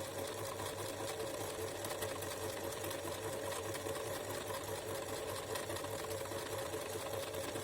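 Domestic sewing machine running steadily, stitching at an even pace.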